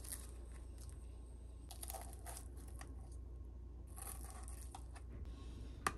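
Baked puff-pastry crust crackling and crunching as spoons break through it, in short bursts about two seconds in and again about four seconds in, with a sharp click near the end.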